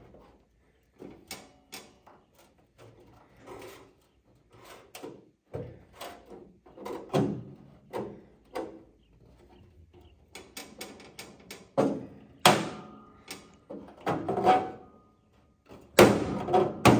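Steel dent-repair rod clanking and scraping against the inside of a car hood and its bracing as it is worked into position under a dent: irregular knocks and clacks, the loudest ones near the end leaving a short metallic ring.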